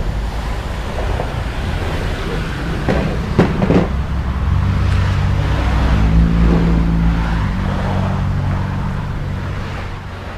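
A motor vehicle's engine running with a low hum that swells to a peak a little past the middle and then fades away, as a vehicle passing by does. There are a few short sounds, like a brief voice, about three to four seconds in.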